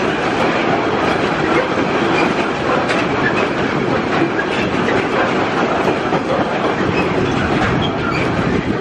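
Loaded log wagons of a timber freight train rolling past close by: a steady, loud rumble and rattle of wheels and wagon bodies, with clicks and thumps as the wheels run over the rail joints.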